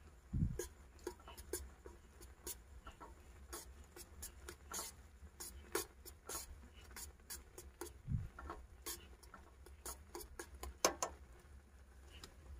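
Irregular light clicks and taps, with a dull thump near the start and another about eight seconds in, over a low steady rumble.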